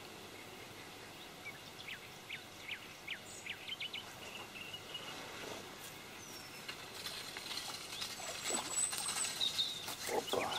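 Small birds giving short chirps over a reedy swamp. From about the middle on, a growing run of light splashes and rustling clicks as a hooked crucian carp is pulled in through the reeds and water.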